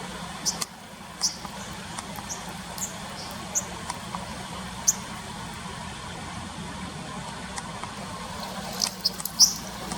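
Short, high chirps from a small bird, a dozen or so at irregular intervals and bunched together near the end, over a steady rush of running stream water.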